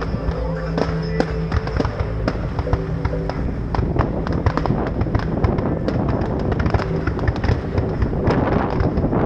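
Fireworks display: many sharp bangs and crackles in rapid succession over loud music. The music's held notes drop away about three and a half seconds in, leaving dense crackling.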